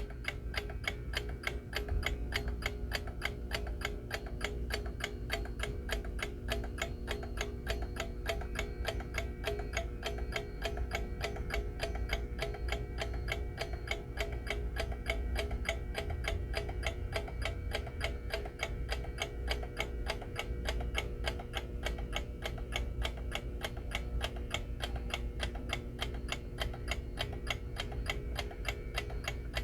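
Vintage Rhythm mechanical bell alarm clock ticking fast and evenly, with a steady low hum underneath; the bell does not ring.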